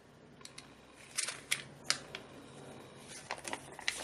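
Pages of a small paper user manual being flipped by hand: soft paper rustles and flicks, a few louder ones about a second in and a cluster near the end.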